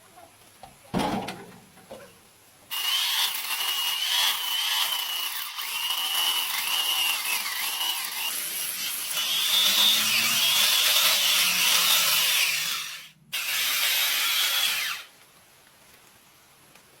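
A power tool running under load for about twelve seconds: a high hiss with a whine that wavers in pitch. It cuts out for a moment just after 13 s, runs again briefly and stops about two seconds later. A single knock comes about a second in, before the tool starts.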